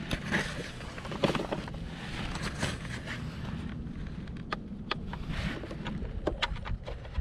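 A series of short, sharp clicks from buttons being pressed on a DeWalt 20V portable tyre inflator, most of them in the second half, over a steady low background hum. The inflator's compressor is not yet running.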